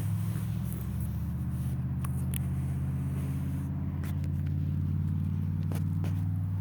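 An engine idling steadily with a low, even hum, and a few faint clicks over it.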